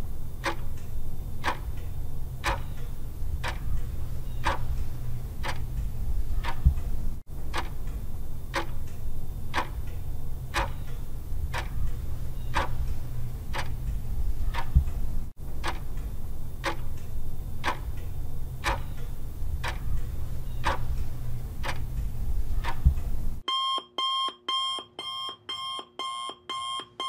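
Countdown timer sound effect: steady clock ticking over a low hum. Near the end it switches to rapid electronic alarm beeping in two tones as the countdown runs out.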